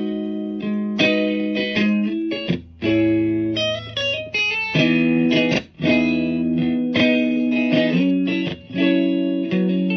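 Electric guitar played through an effects pedal: chords and picked notes, with brief breaks between phrases.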